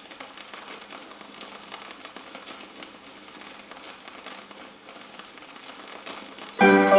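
Vinyl record surface noise, a faint hiss with light crackle and ticks, in the blank stretch between two tracks. Near the end a keyboard-led instrumental intro starts suddenly and loudly.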